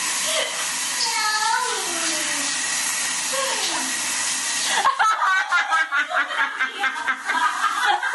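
Shower running, a steady hiss of spray, with faint voices over it; about five seconds in the spray cuts off suddenly and quick, pulsing laughter follows.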